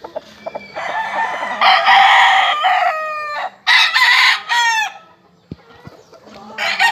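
Gamecock roosters crowing: a long, several-part crow ending in falling notes fills the first two thirds, and another crow starts near the end.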